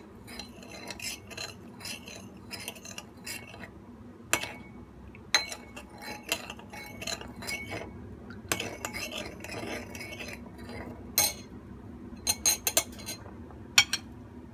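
Small stainless-steel ladle clinking and scraping against a ceramic bowl while stirring a thin marinade: a string of quick clinks, with a few louder, ringing knocks scattered through.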